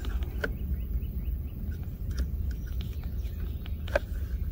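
Plastic handling clicks as a wiring-harness plug is worked into a keyless-entry receiver module, with a sharp click about four seconds in as it snaps into place, over a steady low rumble. Birds chirp faintly in the background.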